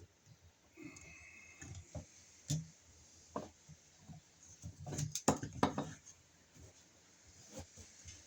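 Scattered light clicks, taps and clatters of hands handling small electrical parts and wires, with a quick cluster of knocks about five seconds in.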